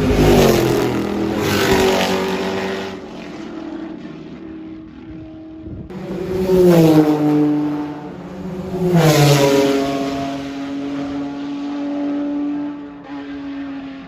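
Four-rotor Mazda rotary race car engine revving hard: four loud surges, the pitch sweeping down after each, then a steady high note that drops away near the end.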